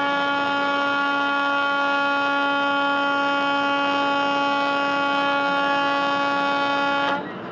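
Truck horn held in one long, loud blast of about seven seconds, a single steady tone that cuts off near the end, sounded as a warning at a box truck cutting in close.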